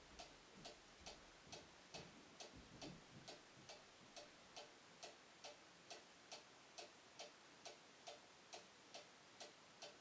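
Faint, even ticking of a clock, about two ticks a second.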